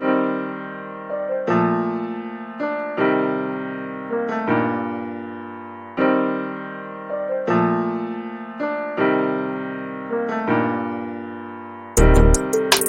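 Background music: keyboard chords struck about every one and a half seconds, each fading away, with a drum beat coming in near the end.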